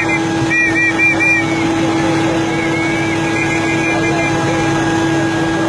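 Heavy lifting crane's engine running steadily under load, a constant hum with steady tones, while it holds a railway locomotive aloft. A few short high chirps sound between about half a second and a second and a half in.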